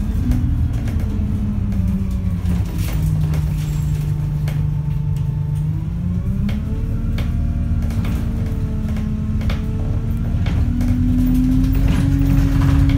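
Alexander Dennis Enviro200 single-deck bus heard from inside the cabin while in motion. The engine and gearbox hum drops in pitch as the bus slows, holds low, then climbs in two steps as it pulls away again. Scattered clicks and rattles come from the bodywork.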